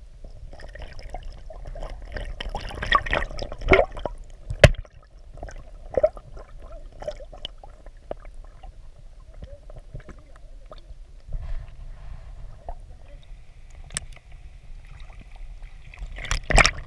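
Muffled water sounds heard through an underwater camera in a shallow stream: gurgling and sloshing with scattered clicks and knocks. The loudest are a sharp knock about four and a half seconds in and a cluster of splashing knocks near the end, with the camera just under the surface.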